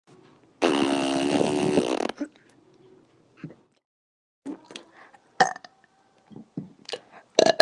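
A woman's long, loud burp about half a second in, lasting about a second and a half, followed after a pause by a few short, scattered mouth sounds and small bursts, the loudest near the end.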